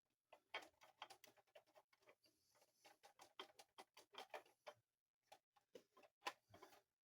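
Faint, irregular clicks and taps of small plastic toy parts being handled and set down, with a light rustle around two to three seconds in.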